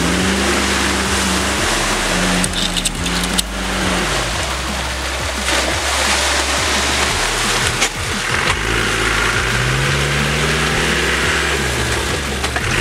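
Off-road 4x4's engine revving up, holding its revs and dropping back twice, mixed with electronic dance music and its stepping bass line.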